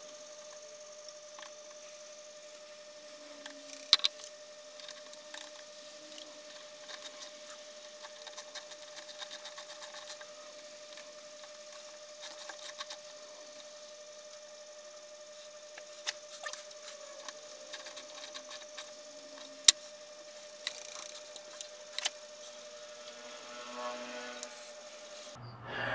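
Scattered clicks, clinks and a few sharp knocks of small metal parts handled on an 1894 Barnes lathe's back gear assembly as a thin shim washer is tried on the shaft, over a steady hum.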